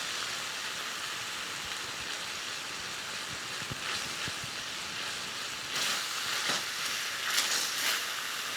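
Onions and coconut cream sizzling in a hot pan as they are stirred, a steady hiss with a few light knocks and brief scrapes of the spoon in the second half.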